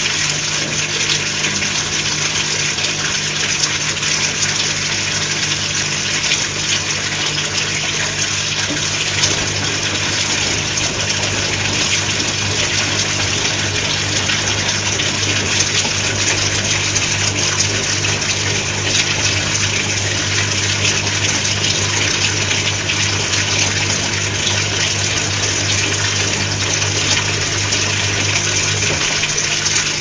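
Whirlpool AWG 371 front-loading washing machine on a rinse: a steady rush of water in the drum as it tumbles the laundry, over a low motor hum that stops near the end.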